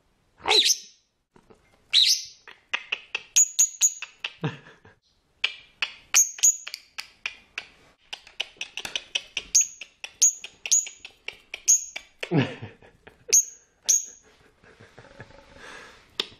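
A bird chirping busily: a long run of short, sharp chirps and clicks, broken by a few longer sweeping calls.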